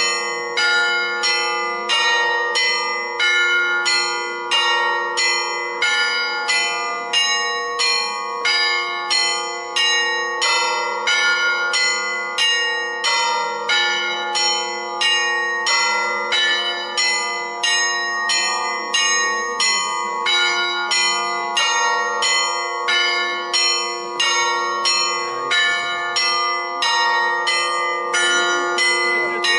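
Orthodox church bells ringing a continuous peal: several bells of different pitch struck in quick succession, about two strokes a second, their tones ringing on over one another.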